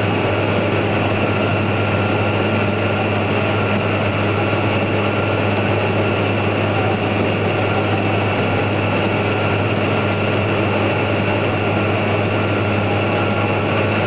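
Steady drone of farm machinery heard from inside a tractor cab, with a strong low hum: the tractor's engine running under load alongside a combine harvester cutting wheat.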